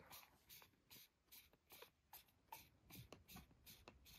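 Faint handling noise: light scratches and taps, about three a second, from a hand working a small plastic sensor casing.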